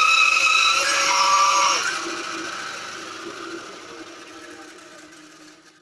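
Titan bandsaw cutting a thin veneer from a board, its note shifting about a second in. Near two seconds in the cut stops and the saw winds down, fading steadily over about four seconds.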